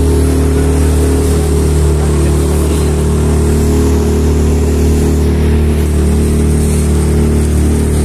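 Small boat's outboard motor running steadily at cruising speed, with the rush of water spraying off the hull.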